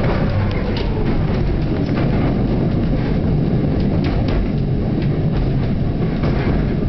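Former London Underground 1938-stock electric train running along the track, heard from inside the carriage: a steady heavy rumble with scattered sharp clicks and knocks from the wheels and running gear. A faint whine slides down in pitch in the first second.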